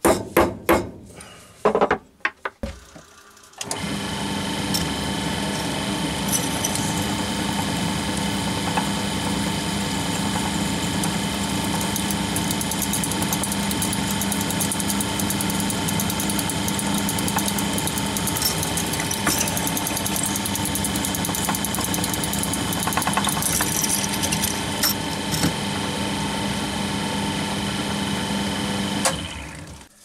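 A few sharp metal taps of a centre punch marking the hole, then a bench drill press starts and runs steadily for about 25 seconds, a 4 mm twist drill cutting through the metal component held in the drill vise, and stops shortly before the end.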